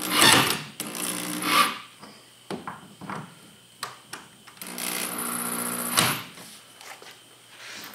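Handheld power drill running in short bursts against a wooden board: a brief run at the start, another about a second in, then a longer run of about a second and a half near five seconds in, with small handling clicks between.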